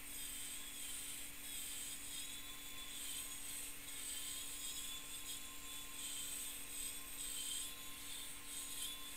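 Taig micro mill's spindle turning an end mill that routes out wood: a steady hum with a high, wavering cutting whine over it.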